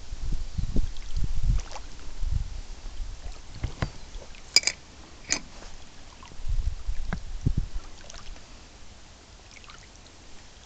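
Irregular low knocks and thuds of movement in an inflatable rubber boat on calm water, in two clusters, at the start and again past the middle. Two short, sharp high sounds fall about halfway through.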